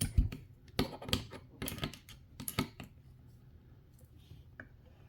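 Hand tools clacking against a plastic tool tray as they are tried in its holders: a quick run of sharp clicks and knocks over the first three seconds, then a few fainter ones.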